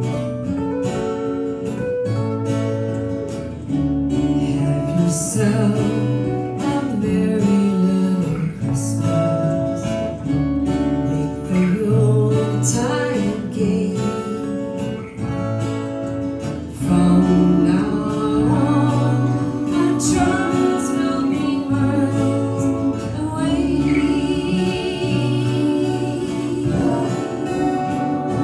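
Acoustic guitars playing together with a woman singing the melody.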